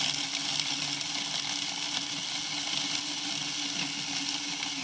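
Small electric mini food processor running steadily, its blade grinding almonds into a fine powder: an even motor hum under the hiss of the ground nuts.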